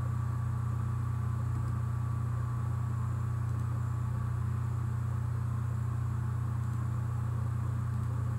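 A steady, unchanging low hum with a faint hiss behind it.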